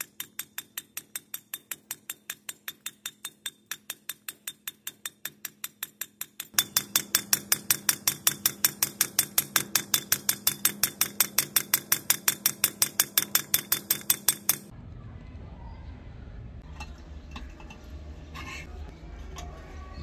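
Hand hammer striking a flattened nail blade on the anvil face of a steel bench vise: a steady ringing metallic rhythm of about four blows a second, louder after a cut about six seconds in. The hammering stops about 15 seconds in, leaving a low steady noise and a few light metal clinks.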